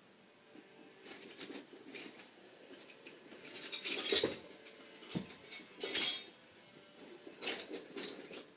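Metal clinking and rattling as a metal electrical box and tools are handled, in a series of irregular clatters and scrapes, the loudest about four and six seconds in.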